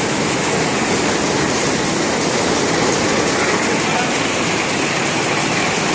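Rapier looms running together in a weaving shed: a loud, dense, unbroken mechanical clatter.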